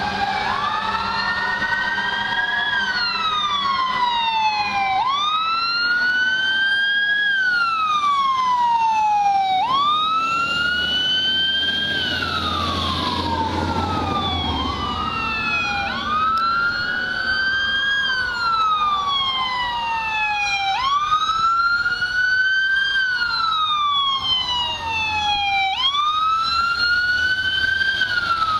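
Two fire-department electronic sirens on wail, sounding out of step with each other; each rises quickly and falls slowly, repeating about every five seconds. A low rumble comes in briefly about halfway through.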